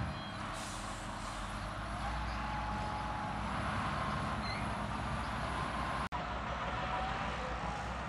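Heavy diesel earthmoving machinery running steadily with a low rumble and a faint whine. The sound cuts out for an instant about six seconds in.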